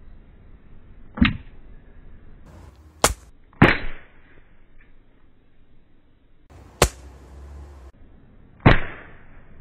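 Pocket Shot pouch slingshot being shot at a paper envelope target: three sharp snaps with a short fading tail, about a second, three and a half and almost nine seconds in, with two single sharp clicks between them.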